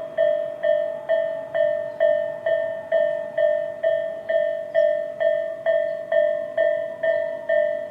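Japanese electronic level-crossing warning bell of the Tobu type (Tobu 'sound A'), ringing steadily at a little over two dings a second, each ding bright and fading before the next: the signal that the crossing is closed for an approaching train.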